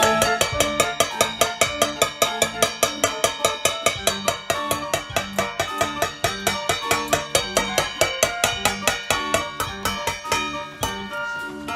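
Background music: an upbeat tune of pitched percussive notes over a quick, steady beat.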